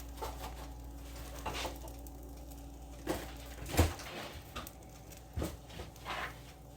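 Scattered light knocks and clicks of kitchen handling, the loudest about four seconds in, over a steady low hum.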